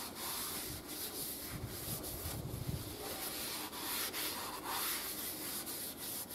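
Blue paper workshop towel rubbed round and round inside a honed cylinder bore of a V8 engine block, a continuous scratchy wiping as the honing residue is cleaned off the cylinder wall.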